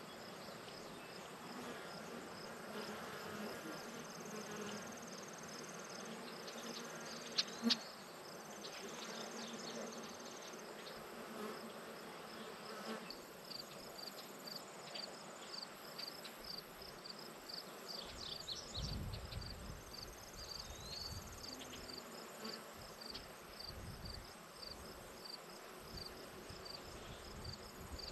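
Summer insect chorus in a flower field: crickets chirping in an evenly repeated series with stretches of a steady high trill, and a low buzz of bees or flies passing. Two sharp clicks come about seven seconds in, and a few low rumbles come later on.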